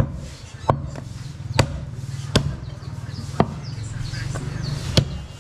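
Butcher's cleaver chopping goat meat on a wooden chopping block: six sharp chops, roughly a second apart.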